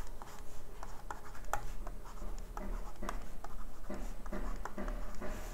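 Stylus writing on a tablet surface: light scratching strokes and small taps as letters are drawn.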